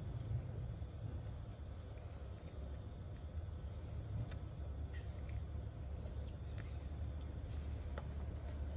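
Steady high-pitched insect chorus with a fine pulsing trill, over a low steady hum, with a few faint clicks.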